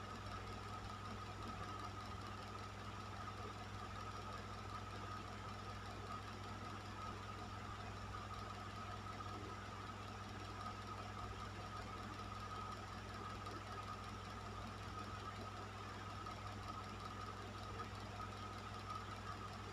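Electric fan running steadily: an even rush of air over a low motor hum, with a thin steady whine above it.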